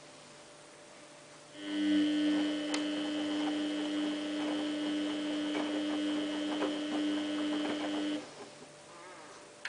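Samsung WF8804RPA washing machine turning its drum: a steady electric motor hum starts about a second and a half in and stops near the end, with faint clicks and knocks of the wet laundry tumbling inside. It is one stroke of the stop-start tumbling that wets the load.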